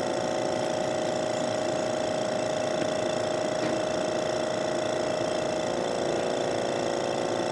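Vacuum pump running with a steady hum while it draws suction through a Buchner funnel filtration setup.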